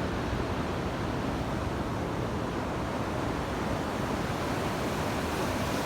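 Steady rush of ocean surf breaking on a beach, mixed with wind on the microphone.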